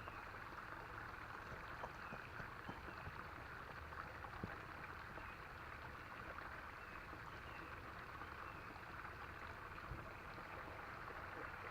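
Faint, steady sound of creek water running, with a few light clicks.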